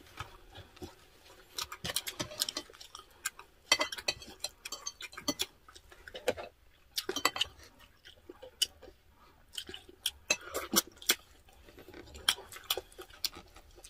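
Two people eating close to the microphone: chewing with many short, irregular wet mouth clicks, and now and then a spoon or fork touching a plate.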